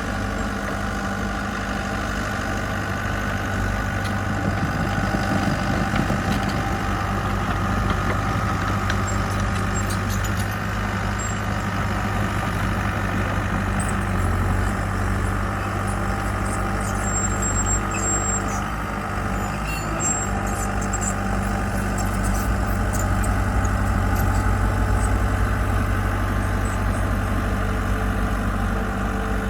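Diesel engine of heavy construction equipment running steadily.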